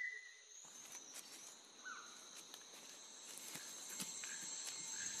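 Faint rainforest ambience: insects keep up a steady high-pitched drone, with a short chirp about two seconds in and scattered faint ticks, growing a little louder toward the end.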